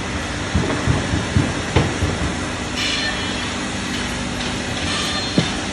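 WM-2000BI automatic drilling, glue-injecting and dowel-inserting machine running with a steady mechanical noise. A series of sharp knocks comes in the first two seconds, a short hiss about three seconds in, and one more knock near the end.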